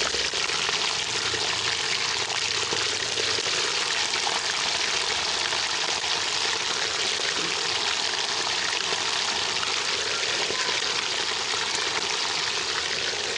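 Chicken pieces frying in hot oil: a steady, dense sizzle with no break.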